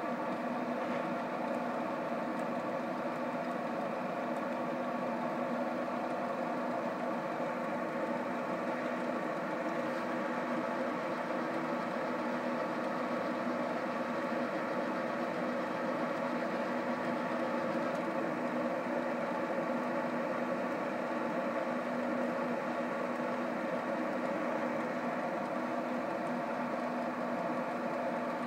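Traeger pellet grill's blower fan running with a steady hum made of several even tones.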